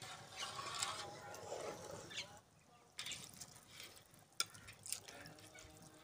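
Slotted metal ladle stirring rice into the stock in a large aluminium pot: faint sloshing and dripping of liquid, with two light metal clicks about four and a half and five seconds in.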